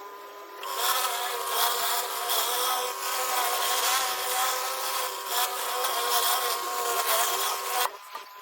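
Pressure washer spraying high-pressure water onto sandstone paving over a steady machine hum; the spray starts about half a second in and cuts off suddenly near the end.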